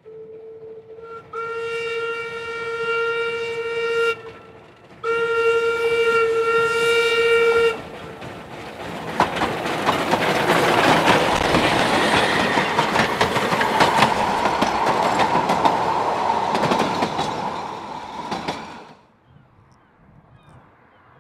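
Narrow-gauge steam locomotive's whistle blown in two long, steady blasts. Then the train passes close by in a dense rush of exhaust and wheel noise that swells and cuts off abruptly near the end.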